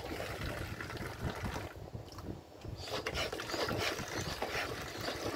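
A hand-pressed manual water dispenser pump on a large water bottle being pumped, its plastic mechanism clicking and creaking as water runs from the spout into a small plastic bottle. There is a brief lull near the middle.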